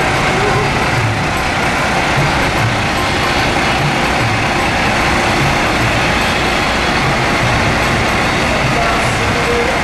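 Semi-truck's diesel engine running as the tractor unit pulls a float slowly past, under a steady, loud noisy din.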